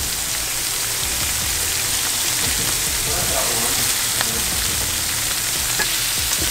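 Lobster meat searing in hot olive oil in a stainless steel pan: a steady sizzle with scattered small pops and clicks as the pieces are turned with metal tongs.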